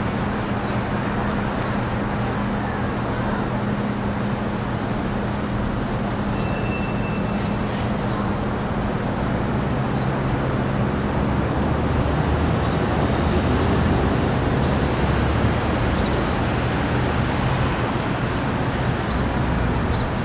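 Steady downtown street traffic noise, with a low engine hum underneath.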